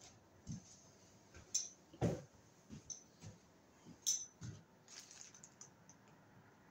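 A few quiet footsteps and scattered light clicks and knocks, irregularly spaced, with the loudest thump about two seconds in.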